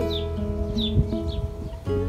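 Background music of steady held notes that step from one pitch to another, with short high descending chirps about twice a second.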